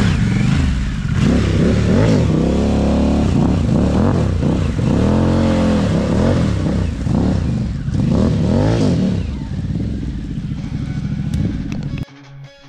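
Harley-Davidson Pan America's Revolution Max 1250 V-twin revving up and down over and over as the bike pulls away through mud, the engine note rising and falling with the throttle and gear changes. It grows fainter as the bike moves off and cuts off suddenly near the end.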